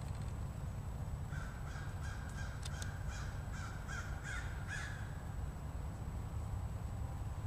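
A crow cawing, a quick run of about eight harsh calls lasting three or four seconds, over a steady low rumble.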